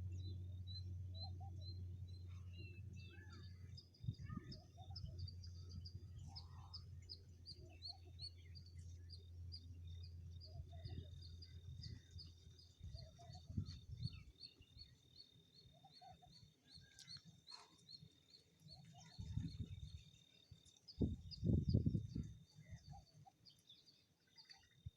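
Several birds calling outdoors: one high chirp repeated steadily two or three times a second, with assorted shorter calls over it. A low hum stops about four seconds in, and low rumbling bursts come and go, the loudest about 21 seconds in.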